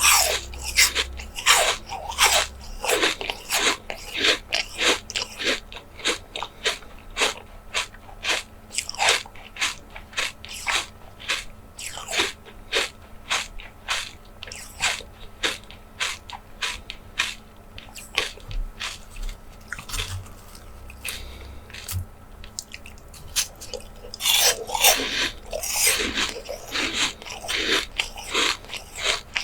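Close-miked ASMR chewing and biting of jelly desserts: a steady run of wet, clicky chews, about two a second, with louder, crunchier bites at the start and again a little before the end.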